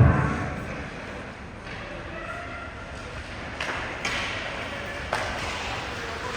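Ice hockey play in an echoing rink: a sharp knock at the start and a few more a few seconds later, typical of pucks and sticks striking boards and ice, over distant voices calling.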